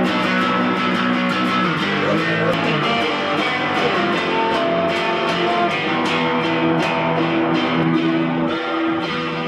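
Guitar-led background music playing steadily, with strummed electric guitar.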